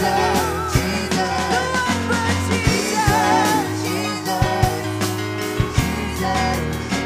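Live worship band playing: drum kit, bass and keyboard, with singers' melodic vocal runs over it and drum hits at an even beat.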